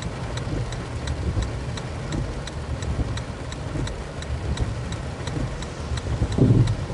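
Car turn signal ticking evenly, about two clicks a second, over the low engine and road rumble inside the cabin. A short low sound stands out about six and a half seconds in.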